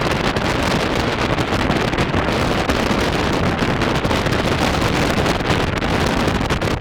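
Typhoon gale blasting across the microphone: a loud, continuous rush of wind noise.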